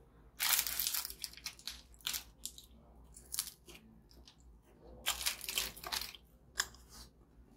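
Crunchy biscuits being crunched in a series of short, crisp bursts, with a longer run about half a second in and another about five seconds in.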